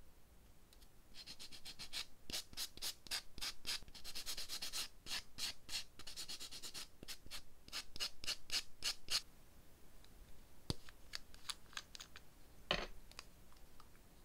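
White block nail buffer rubbed back and forth over a fingernail in quick, even strokes of about three or four a second, buffing the nail surface. The rubbing stops after about nine seconds. A few light plastic clicks follow, then a sharper click near the end as a cuticle remover bottle is handled and uncapped.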